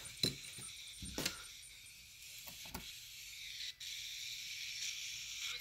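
Faint FM radio static hissing from a small speaker wired straight to a TEA5767 radio module, very quiet, with a few brief blips as the spirit box sweeps from station to station.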